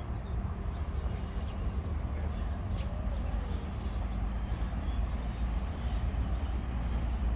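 Steady low rumble of city traffic, with a few faint high chirps, like birds, over it.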